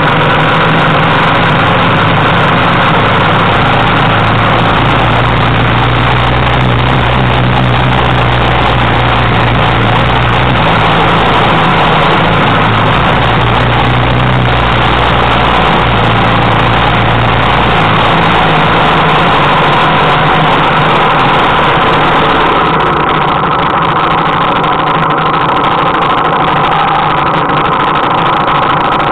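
Trail motorcycle engines running on a rough dirt lane, the engine note shifting with the throttle. In the last several seconds the sound eases off a little as the bikes pull up.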